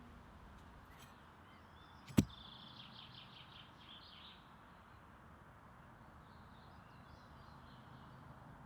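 Small birds chirping in short runs over a faint steady hiss, with one sharp click about two seconds in.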